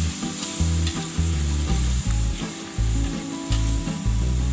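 Blended spice paste frying in very hot oil in an aluminium wok, sizzling steadily. A metal spatula stirs and scrapes it, adding faint clicks and low knocks.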